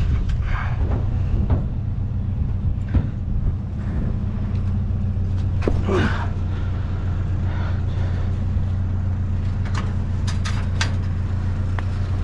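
Pickup truck engine idling steadily, with a few scattered knocks and clicks from items being handled, several close together near the end.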